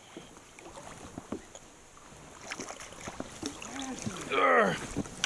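Small knocks and water sounds around a sit-on-top fishing kayak, quiet at first and busier in the second half, with a person's short call about four and a half seconds in.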